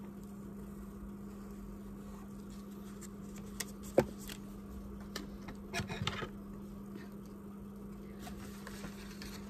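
Hands working with paper and a pencil on a craft table: a sharp tap about four seconds in, then brief paper rustling about two seconds later, over a steady low hum.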